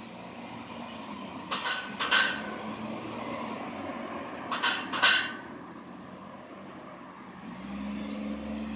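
Cars driving over a railway level crossing. Each car gives a pair of clattering thumps as its front and then rear wheels cross the rails: one pair about a second and a half in, another about four and a half seconds in. Near the end, another car's engine and tyres come up.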